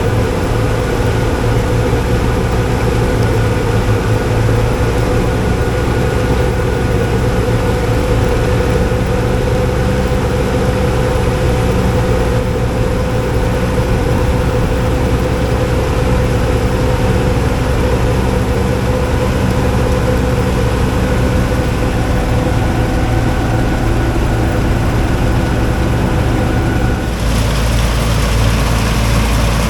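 Heavy engine of a harvest vehicle running steadily, a constant hum with several steady tones. About 27 seconds in the sound changes: some of the tones drop away and a louder hiss comes in.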